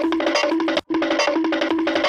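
Cartoon running sound effect: a rapid patter of wood-block taps over a repeating pitched note, looped, with a brief cut-out just under a second in where the loop restarts.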